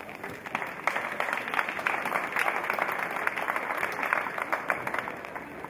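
Audience applauding, swelling about half a second in and dying away near the end.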